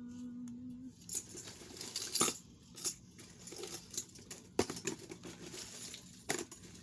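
Costume jewelry clicking and clinking as pieces are picked through and dropped into a plastic bag: a string of separate sharp clicks and rattles about a second apart.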